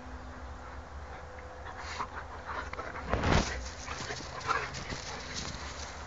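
Two dogs play-fighting, with scuffling and open-mouthed play-biting noises and one louder burst about three seconds in.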